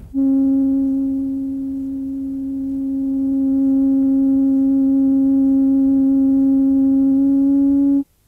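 A steady electronic tone: one low pitch with a stack of overtones, held unchanged for about eight seconds. It dips a little in loudness about two seconds in and cuts off suddenly near the end.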